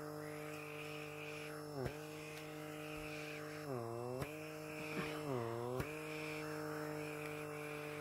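Handheld pore vacuum's small motor humming steadily on setting 3 while its suction tip is held on the nose. The pitch sags briefly three times, about two, four and five and a half seconds in.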